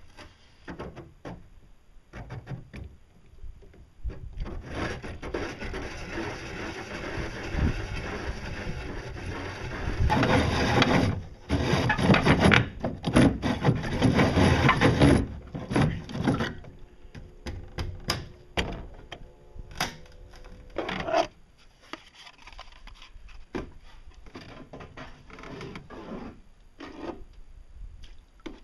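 A round hole being cut through the top of a plastic boat pontoon, a rasping scrape that grows loudest in the middle, then scattered knocks and scrapes as the cut-out plug is worked free.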